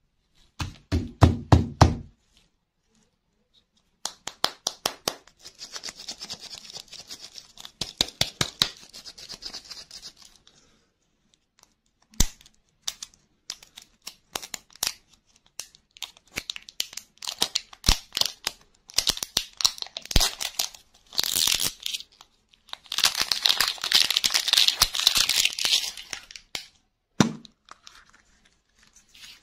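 Foil wrapper being torn and crinkled off a toy-and-lollipop ball by hand, with many small clicks and rustles and a longer stretch of loud tearing late on. A few knocks about a second in, and a single dull knock near the end as the plastic capsule inside is opened.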